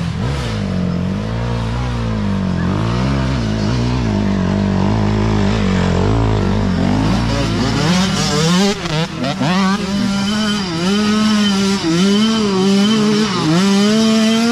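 Several small youth dirt bike engines revving, the throttle worked on and off so the pitch keeps rising and falling. From about eight seconds in a nearer bike is louder, its engine note swinging up and down over and over.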